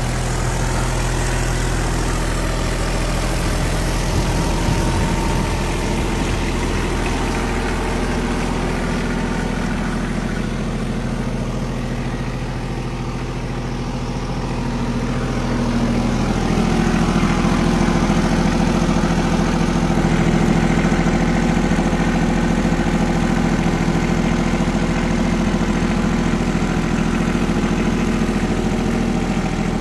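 Ford 1320 compact tractor's three-cylinder diesel engine idling steadily, getting somewhat louder about halfway through.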